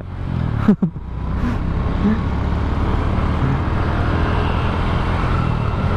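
Suzuki Smash 110's small single-cylinder four-stroke engine running at a steady cruise, with steady wind and road noise. There is one short falling sound under a second in.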